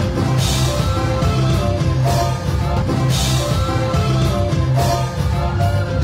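Live regional Mexican dance band playing, with saxophone, bass and drums, and two bright crashes about half a second in and again about three seconds in.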